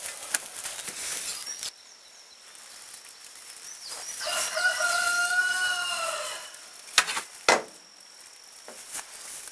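A chicken gives one long, steady call lasting about two seconds, starting about four seconds in. About seven seconds in come two sharp knocks half a second apart, louder than the call, with rustling early on.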